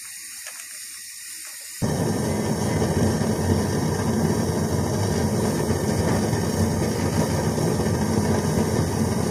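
A pan of salted water with eggs in it, heating on the stove, with a steady hissing rumble. It cuts in suddenly about two seconds in, after a quieter stretch.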